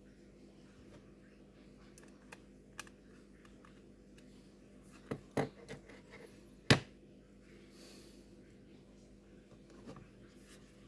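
Scattered clicks and knocks of small hard laptop parts being handled and fitted during a RAM and SSD upgrade, with one sharp knock a little past the middle, over a steady low hum.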